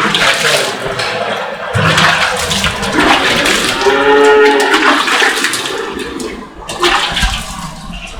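Running water splashing steadily as a cow's udder is washed down before milking. A single moo from the cattle comes about halfway through.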